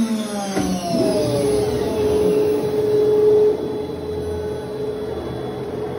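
CNC router spindle spinning down after a cut in plastic sheet, its whine falling in pitch over the first second or so. About a second in, a steady higher whine from the machine starts, then stops suddenly after about two and a half seconds, leaving a lower steady machine hum.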